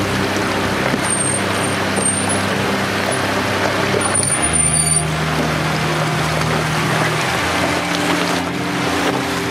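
Off-road vehicle driving along a trail: engine running under a steady, loud noise of tyres and body rattle.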